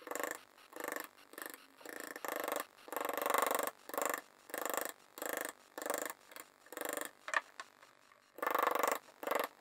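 Rasping back-and-forth strokes of a hand tool on wood, about one or two a second, one longer stroke a few seconds in and a short pause before the last two.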